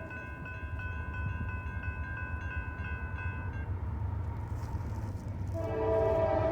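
Railroad crossing bells ringing over the low rumble of an approaching diesel freight train. The bells stop a little past halfway, and about a second before the end the locomotive's air horn starts sounding loudly.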